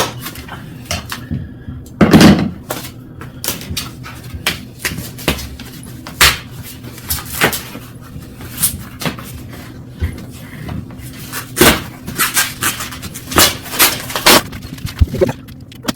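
Zip ties being cut off bike packaging one after another: a string of sharp, irregular snips and clicks, with padding and plastic handled between them and a louder thump about two seconds in.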